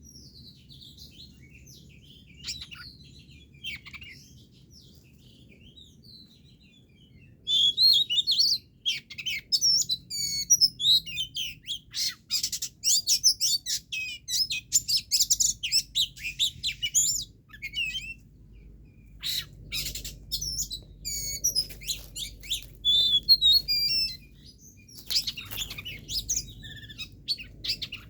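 Songbirds chirping and chattering in rapid, excited bursts of high calls. The calls are faint at first and turn loud and dense about a quarter of the way in, then go on in intermittent bursts.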